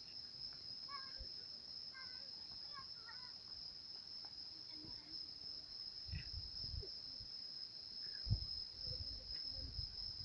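Insects trilling in one steady, unbroken high note. Faint short chirps come over the first few seconds, and low thumps on the microphone fall from about the middle on, the sharpest a little past eight seconds in.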